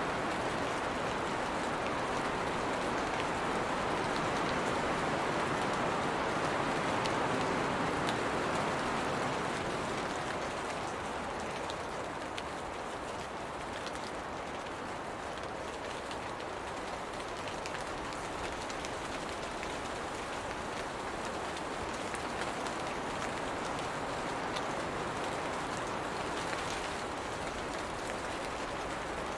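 Steady rain falling on leafy plants, an even hiss with scattered drop ticks. It eases slightly about a third of the way in.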